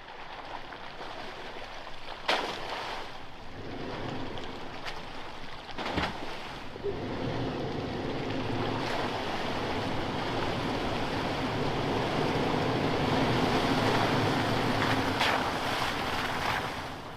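An off-road truck driving over a rough dirt trail: a steady rushing of tyre and wind noise that builds slowly, with a few sharp knocks as it jolts over bumps.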